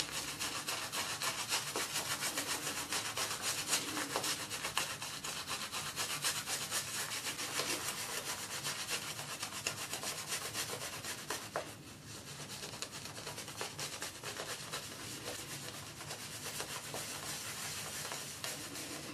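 Boar-bristle shaving brush scrubbing shave-soap lather into a stubbled scalp: a rapid, steady wet brushing, the lather being built up on the head. The strokes grow lighter about two thirds of the way through.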